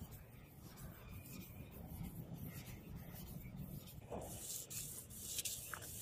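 Sandpaper rubbing back and forth along the groove of a steel katana blade in short strokes. It is faint at first and grows louder from about four and a half seconds in.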